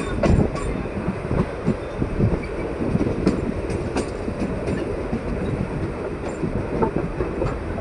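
Passenger train running on the track, heard from on board: a steady rumble with irregular clicks and clanks from the wheels and running gear.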